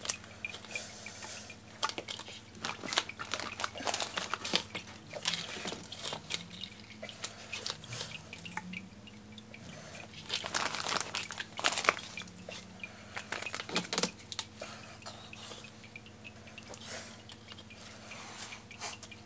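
Handling noise as a PVC sump pump discharge pipe is worked into place in the sump pit: scattered knocks, scrapes and rustles, the sharpest knock about twelve seconds in, over a faint steady low hum.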